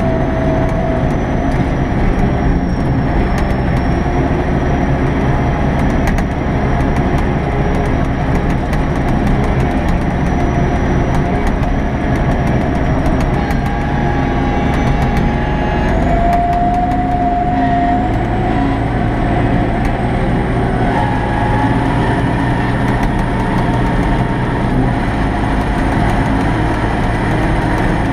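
Kirovets K-700A tractor's V8 diesel engine running steadily under load while pulling a disc harrow, heard from inside the cab. A whining tone rides over the rumble and steps up in pitch about halfway through, climbing a little higher after that.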